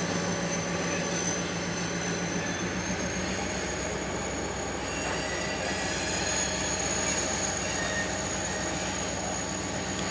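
Diesel locomotives of a slow-moving freight train running past, their engines humming steadily, with a continuous high-pitched wheel squeal that rises slightly in pitch a few seconds in.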